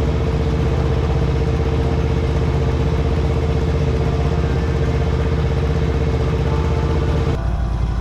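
Motorcycle engine running steadily with a dense low rumble; its sound changes near the end.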